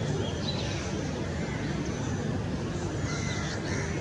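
Steady low background rumble, with faint, brief high chirps and whistles from small birds scattered through it.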